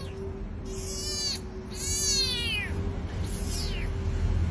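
Kitten mewing three times, short high-pitched calls that each slide down in pitch, about a second apart; the third is fainter.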